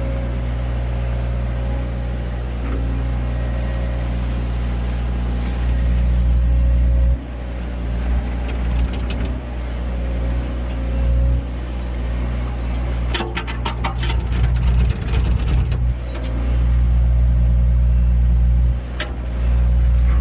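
Engine of a heavy machine running steadily, its sound dropping and rising a few times as the load changes, with a burst of clattering knocks about two-thirds of the way through.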